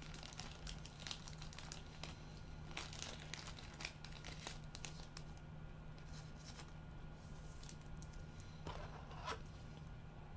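Faint rustling, crinkling and light clicks of trading cards and their packaging being handled, thickest in the first half and with a short scrape near the end, over a steady low hum.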